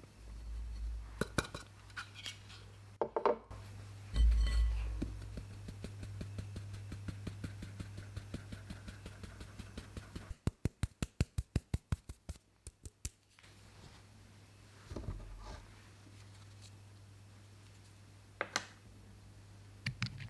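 Flour being sifted through a stainless-steel mesh sieve into a glass mixing bowl, with light clinks of metal on glass and soft knocks. In the middle the sieve is tapped in a rapid, even run of about seven ticks a second for some three seconds, over a low steady hum.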